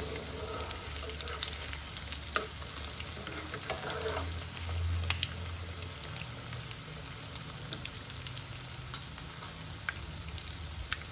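Breaded chicken shami kababs shallow-frying in hot oil in a nonstick pan, sizzling and crackling steadily. Metal tongs click against the pan a few times as the patties are turned.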